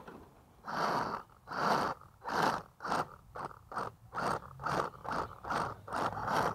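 Traxxas X-Maxx RC truck, converted to two-wheel drive, given about a dozen short bursts of throttle that come quicker after the first few, its drivetrain giving out a burst of gear noise each time: the fault that is still there after the repair.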